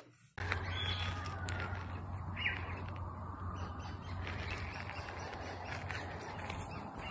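Birds chirping now and then over outdoor ambience with a steady low hum underneath.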